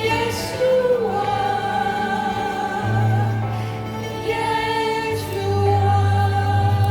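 Worship music: sustained sung notes from several voices over held keyboard chords and a steady bass note.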